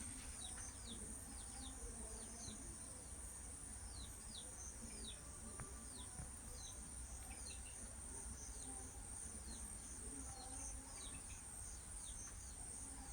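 Baby chicks peeping faintly: many short, falling chirps at irregular intervals, over a steady high-pitched hiss.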